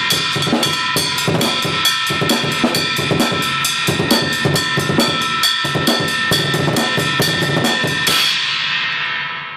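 Homemade 16-inch brass inverted china cymbal, cut down from a cracked Meinl HCS 20-inch ride and drilled full of holes, played in a drum-kit groove with bass drum and snare, about four strikes a second. The playing stops about eight seconds in and the cymbal rings out and fades.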